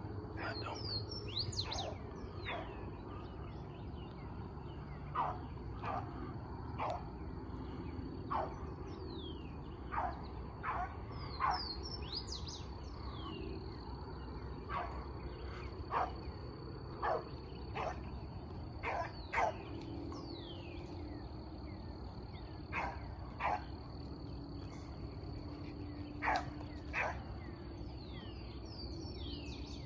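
Beagle pups barking on a rabbit's track: short yips coming at uneven intervals, a second or two apart. Birds give quick falling chirps over them, and an insect keeps up a steady high drone.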